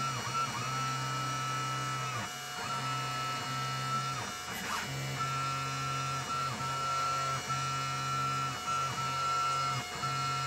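Stepper motors of a small CNC pyrography machine whining as it moves the hot-wire tip, steady tones that break off briefly and resume at a shifted pitch every half second to a second as each move ends and the next begins. The footage is sped up to double speed, which raises the pitch.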